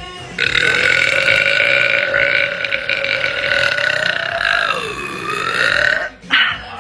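A woman's very long, loud burp lasting about six seconds, held at a steady pitch that sags and comes back up near the end, followed by a short second burp.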